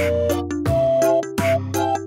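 Background music with a steady beat and held melody notes.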